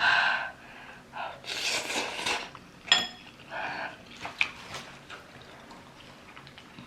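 Eating utensils clinking against a bowl, with one sharp ringing clink about three seconds in and a few lighter clicks after it, between short hissing breath-like sounds.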